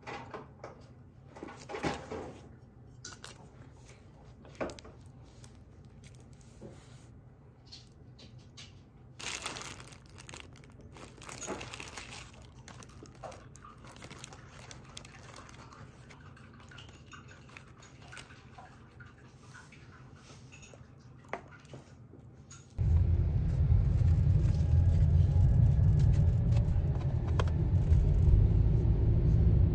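Quiet rustling of a paper muffin wrapper and small crunches as a muffin is handled and broken. About three quarters of the way through, this gives way suddenly to the much louder, steady low rumble of a car driving, heard from inside the cabin.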